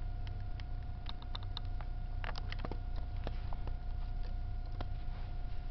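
Model train running: a steady low rumble and a constant hum, with irregular light clicks and ticks from the wheels and track, a quick cluster of them about two seconds in.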